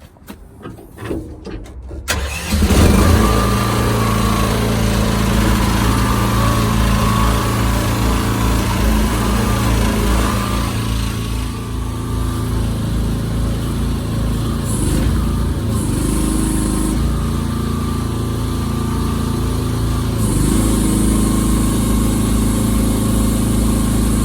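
Mini excavator's small engine starting about two seconds in, then running steadily. Later a high hiss comes and goes over the engine.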